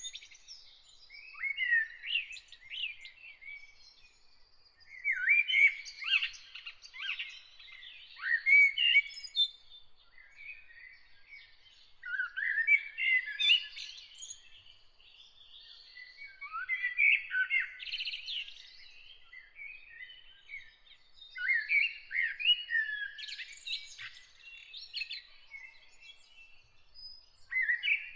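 Songbird singing in repeated phrases of quick chirps and warbling trills, each phrase a second or few long, with short pauses between.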